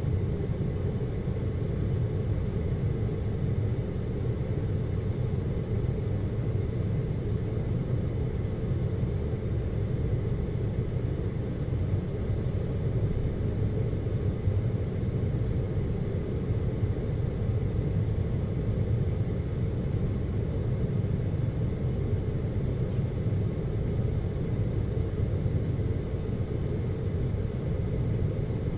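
Steady low rumble and hum inside an aerial cable car cabin as it travels along its cable, with a faint steady high tone above it.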